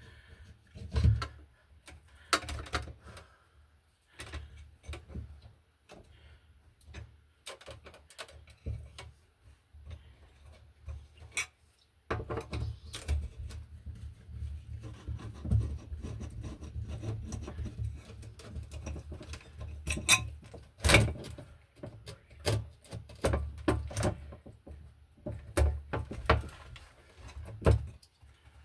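A screw being worked into drywall by hand, with irregular scraping, rubbing, clicks and knocks. The screw is not biting into anything solid behind the wall.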